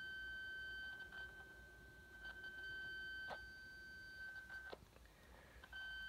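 High-pitched electronic whine from a CB radio: one steady tone with fainter overtones above it that cuts out twice and comes back, with a sharp click about three seconds in and another where it stops. The whine comes from around the radio's transformer and points to a power-supply fault.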